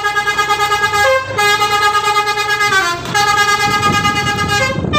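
Bus telolet horn, a multi-tone musical air horn, playing a tune: long held notes with a brief higher note and a short break about a second and a half in, a downward slide near three seconds, and a higher note again near the end.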